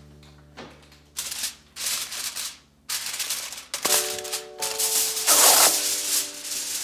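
Aluminium foil crinkling and rustling in repeated bursts as it is pressed over a glass baking dish and pulled off the roll, over soft background music.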